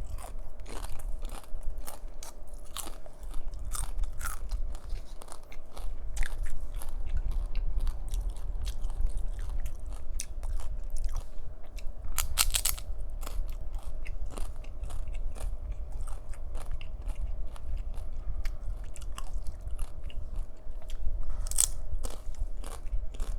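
Close-miked chewing and crunching of chips with salsa: a steady run of crisp cracks and wet chewing, with a few louder crunches around the middle and near the end.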